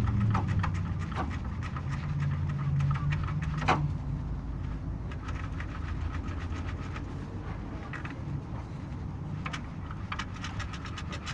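Honda Fit engine running with a steady hum while the air-conditioning compressor clutch knocks, giving a fast, irregular clatter of clicks and one louder knock about four seconds in. The knocking clutch is the fault being shown.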